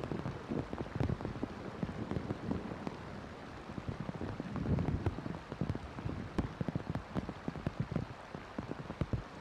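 Heavy rain pouring onto marsh water and the reed nest, a steady hiss crowded with close individual drop impacts. It swells to a heavier spell about five seconds in.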